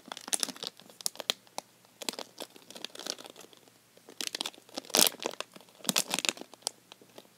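Plastic squishy-toy packet crinkling and crackling as it is handled, in irregular crackles with a few louder ones near the end.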